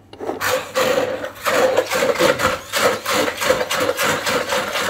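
Hand-held stick blender running in a tall jug, puréeing chickpeas into hummus. The motor starts about half a second in and runs on with a steady tone under a coarse grinding, churning noise.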